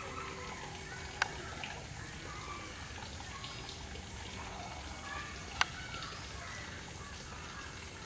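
Steady outdoor background hiss with faint scattered chirps, broken by two sharp clicks, one about a second in and one past the middle.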